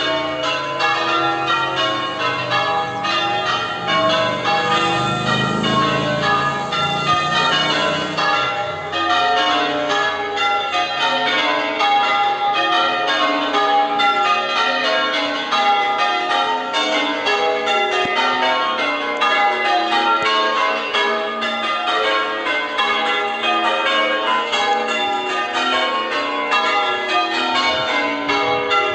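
A ring of church tower bells being rung, the bells striking one after another in a steady, continuous rhythm, with a low rumble underneath for a few seconds near the start.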